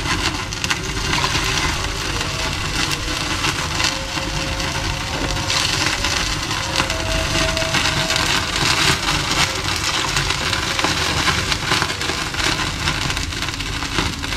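A stainless steel stockpot of soup broth heating on the stove, crackling and sizzling steadily. The broth has not yet come to a boil.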